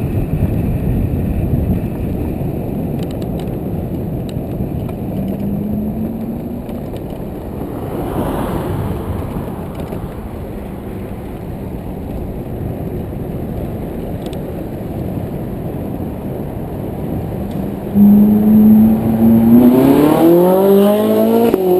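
Steady road and wind noise, then near the end a car engine suddenly becomes loud with a steady note and, about a second and a half later, climbs in pitch as the car accelerates hard.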